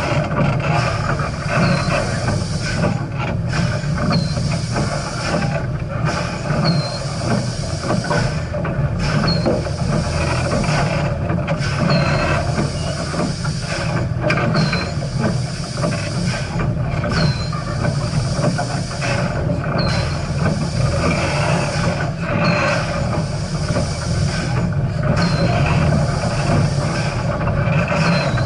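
Steam train running along the track: a steady rumble and hiss, with a soft regular beat repeating about every three seconds.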